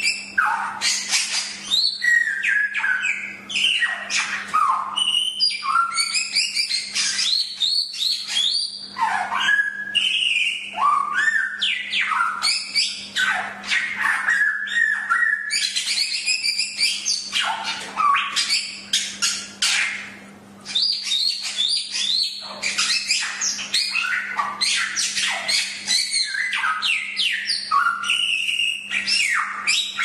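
Golden whistler (samyong) singing a near-continuous, varied song of chirps, whistles and quick slurred notes, with one short break about twenty seconds in. A steady low hum runs underneath.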